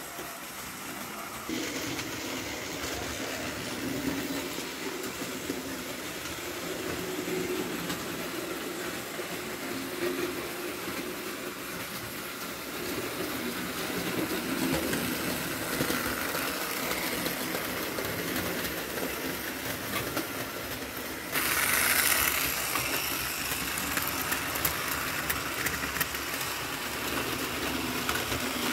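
Model train running on a layout: the electric motor of a V160 diesel locomotive model humming while its tank wagons roll over the track. It gets suddenly louder about three-quarters of the way through.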